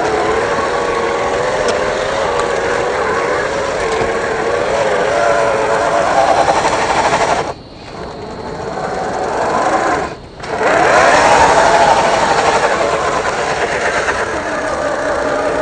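Electric motor and gear train of a 1/10-scale Axial SCX10 III RC crawler whining, the pitch wavering up and down with the throttle. About halfway through the whine falls away briefly, and again a few seconds later, as the throttle is let off.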